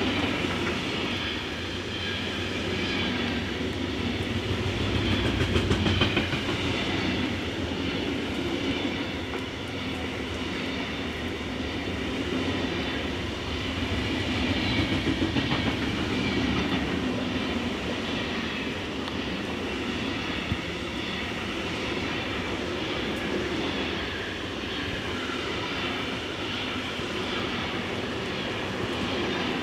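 Intermodal freight train of pocket wagons loaded with semi-trailers rolling past: a steady rumble of steel wheels on rail with a rhythmic clickety-clack as the wagons go by.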